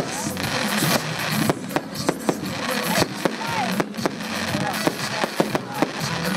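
Fireworks display: aerial shells bursting in quick succession, many sharp bangs and crackles over a continuous hiss.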